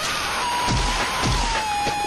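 Analog-horror soundtrack: a steady static hiss with a single tone slowly falling in pitch, and low thuds about every half second, three of them.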